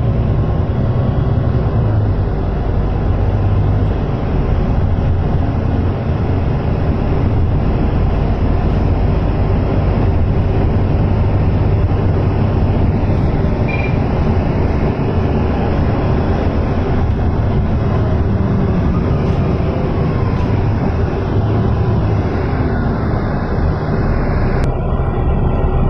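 Cabin noise of a moving Volvo B9TL double-deck bus: its six-cylinder diesel engine drones low and steady over road and body noise, with a few faint whines that rise and fall.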